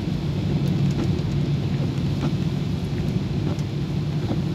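Steady low rumble of a car driving on a wet road in rain, heard from inside the cabin, with a few faint ticks over it.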